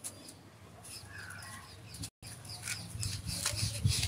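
Faint, short bird chirps repeating over a quiet background.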